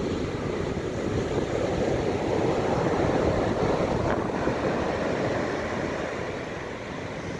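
Heavy hurricane-driven surf: big waves breaking and foam rushing up the beach in a steady wash of noise that eases a little near the end.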